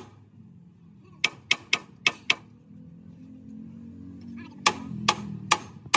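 Hand hammer striking the steel of a truck chassis frame: five sharp metallic blows in quick succession, a pause, then four more blows spaced about half a second apart.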